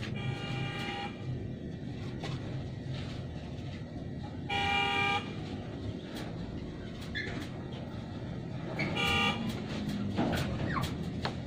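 A vehicle horn tooting three times, short honks a few seconds apart, the middle one the loudest, over a steady low background rumble.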